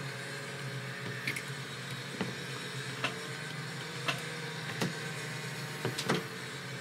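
A handful of sharp light clicks and taps, roughly a second apart with the loudest pair near the end, from small drone parts and a hand tool being handled while the FPV camera mount is adjusted, over a steady low hum.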